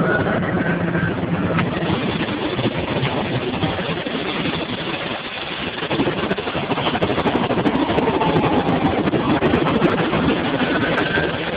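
Helicopter rotor and turbine engine running steadily, heard from on board while the aircraft hovers low, its rotor wash blowing up dust. The noise dips briefly about five seconds in.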